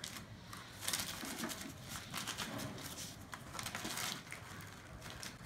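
Paper towels rustling and crinkling as a hand pats and presses them onto damp potato sticks to blot off the water, in soft, irregular pats.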